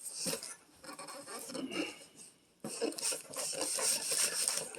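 Cardboard box and packing rubbing and scraping in two rough stretches with small knocks, as a heavy boxed remote-control car that is stuck in it is tipped and worked loose.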